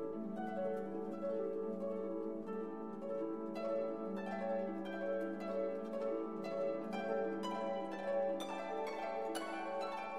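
Background music: plucked, harp-like notes over a held low note, the plucked notes growing busier after a few seconds.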